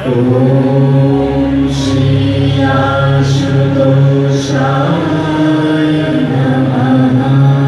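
Devotional chanting: voices holding long sung notes that step from pitch to pitch, with a few sharp hissed consonants, over a steady low hum.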